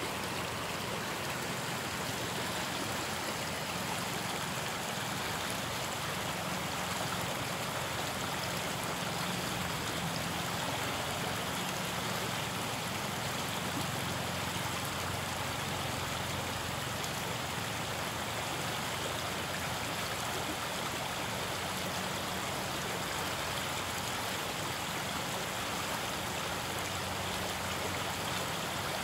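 River water flowing and rippling past the bank, a steady rushing noise.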